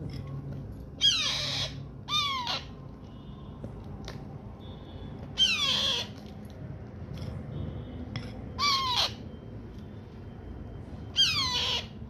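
Parrot chick giving harsh begging squawks, typical of a nestling calling for food while being hand-fed. Five separate calls about half a second each, every one falling steeply in pitch, spaced irregularly a second to three seconds apart.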